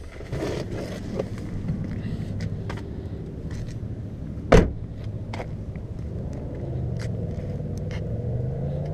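Toyota Tacoma pickup's engine idling steadily, with small handling clicks and one loud sharp knock about halfway through.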